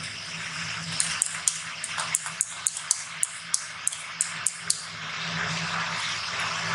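Pen drawing a line on fabric along a clear plastic ruler: scratching with a string of sharp little ticks, then the plastic ruler sliding and lifting off the fabric near the end.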